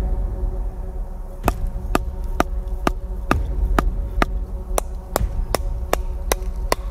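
Batoning: a wooden baton striking the spine of a knife blade to drive it down through a dry log and split it. About a dozen sharp knocks come at a steady two to three per second, starting about a second and a half in.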